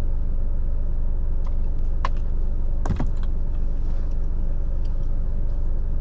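Steady low rumble of a large truck's diesel engine idling, heard inside the cab. A couple of light clicks come about two and three seconds in.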